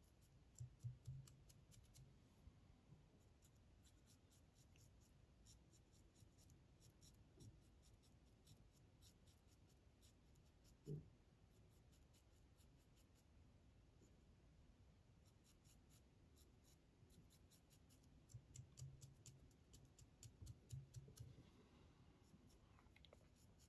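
Faint, crisp ticking of a razor blade shearing through spun deer hair as a fly's head is trimmed, coming in scattered runs of tiny clicks, with a few soft low thumps.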